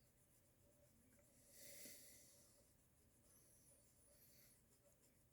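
Near silence, with faint soft swishes of a cotton swab rubbing over aluminium foil, wiping excess oil pastel off the surface. The clearest swish comes about two seconds in and a few weaker ones follow.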